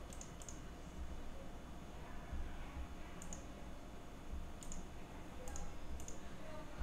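Faint computer mouse clicks, about six, scattered with some in quick pairs, over a low steady hum.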